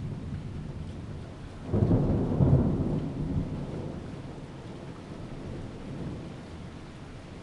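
Thunder: a clap that starts sharply about two seconds in, then rumbles low and fades away over a few seconds, over a steady hiss of rain.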